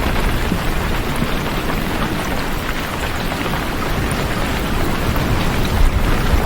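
Heavy rain falling steadily: a dense, even hiss with a deep low rumble beneath it.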